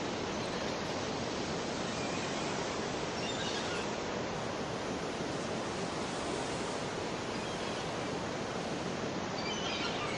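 Steady rushing noise from a sound-effects ambience, even in level without any rise and fall of waves. Faint high chirps come about three and a half seconds in and again near the end.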